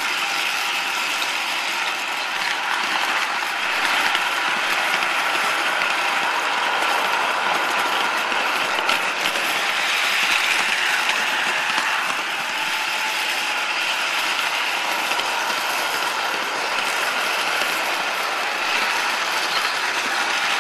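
O-gauge model train running on three-rail track: a steady mechanical rattle of geared motors and metal wheels rolling under the MTH EP-2 Bipolar locomotive and the car carrying the camera.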